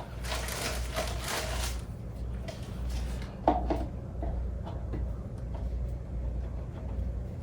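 Plastic cup holder being handled and clipped onto a stroller frame: rustling for the first couple of seconds, then a few light clicks and knocks about three and a half seconds in, over a steady low hum.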